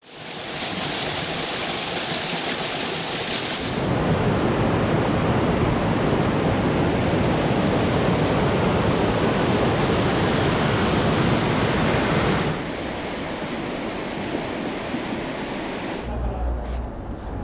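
Steady rushing noise with no distinct events, changing abruptly in loudness and tone about four seconds in and again about twelve seconds in. Near the end it gives way to a quieter low, steady hum.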